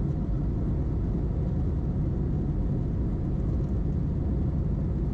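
Steady low rumble of engine and airflow noise heard inside the cabin of an Airbus A321 climbing after takeoff.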